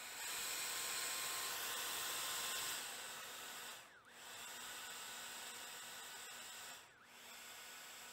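Hand-held hair dryer blowing a steady rush of air with a faint whine. It is louder for the first few seconds, then settles a little lower, and drops out briefly twice.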